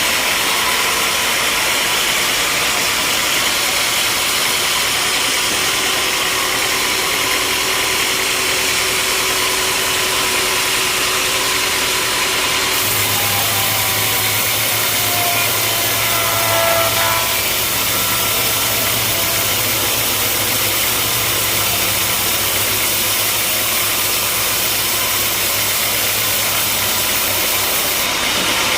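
Sawmill machinery running steadily with a loud, even engine noise. About halfway through a low hum joins in, and a short whine rises and falls a few seconds later.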